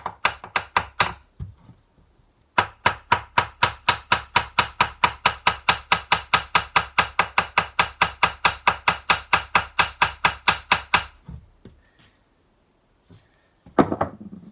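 Fast, even hammer blows on a Ford Type 9 gearbox, metal on metal at about five a second, driving out an internal part that is tight to remove. The blows pause briefly just over a second in and stop about three seconds before the end, and one heavier knock follows near the end.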